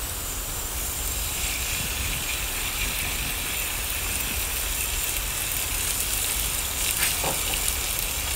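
Minced garlic sizzling in oil in a frying pan: a steady hiss, with a few light crackles near the end.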